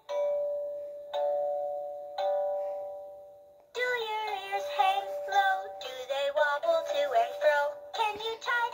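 Baby GUND Flappy the Elephant animated plush toy playing its song through its small built-in speaker: three chime-like notes, each ringing out and fading, then from about four seconds in a recorded sung melody with music.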